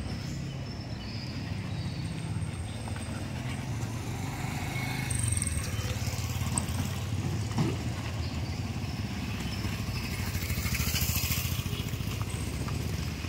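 A motor vehicle engine running steadily, growing louder in the second half, with flip-flop footsteps on concrete.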